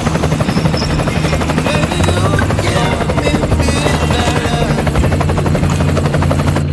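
Plastic push-along toy helicopters rolled along the floor, their wheels driving the spinning rotors, with a fast, even helicopter-like chopping and whirring throughout.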